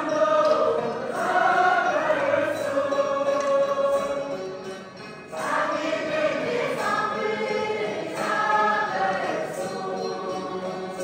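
A mixed group of young men and women singing a Tibetan folk song together in long phrases, accompanied by plucked dramyin lutes. There is a short break between phrases about halfway through.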